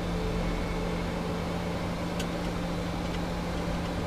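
Aircraft cockpit noise: the steady drone of engines and airflow with a constant low hum.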